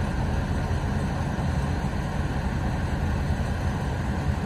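A heavy engine running steadily, its sound mostly low-pitched and unchanging, from the machinery at a crane tree removal.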